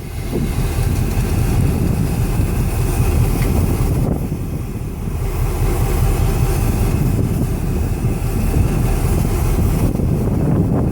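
EMD diesel-electric locomotive engines running with a steady low rumble that comes up at the start and then holds.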